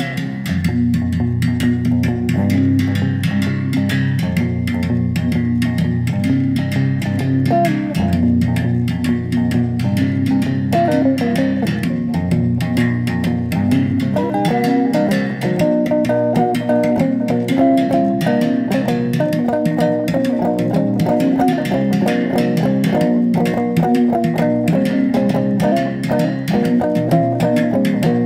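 Music played on a gourd-resonated musical bow, its single string struck with a thin stick in a quick, steady rhythm. Low sustained bass notes sound underneath for about the first half.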